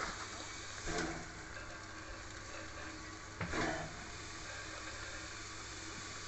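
Small steam locomotive standing in steam, with a steady hiss of steam escaping near its cylinders. Two brief louder sounds break in, about a second in and about halfway through.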